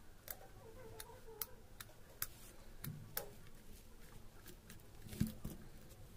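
Scattered light clicks and taps of a small plastic aquarium air pump being handled and turned over, with a louder knock about five seconds in.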